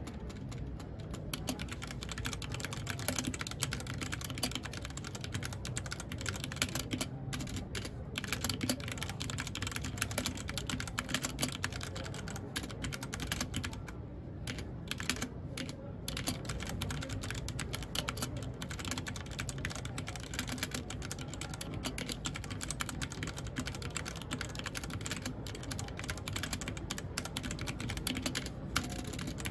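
Typing on a mechanical keyboard: continuous runs of key clicks, with a few brief pauses, the longest about halfway through.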